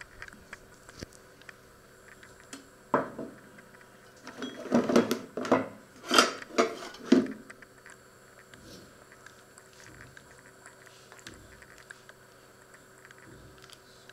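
Kitchen items being handled on a wooden counter: a sharp knock about three seconds in, then a few seconds of clattering and rustling that stops after about seven seconds. Faint scattered ticks for the rest.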